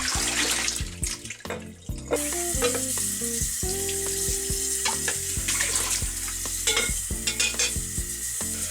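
Background guitar music over a steady hiss with scattered scratchy strokes.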